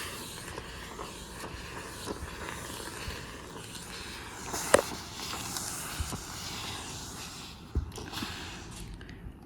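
Handheld garment steamer hissing steam while its brush attachment is rubbed over fabric, with a couple of small knocks.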